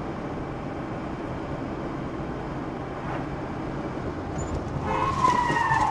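Steady road and engine noise heard from inside a moving car, growing slightly louder toward the end. About five seconds in, a high, sustained tone starts and slides slightly down in pitch.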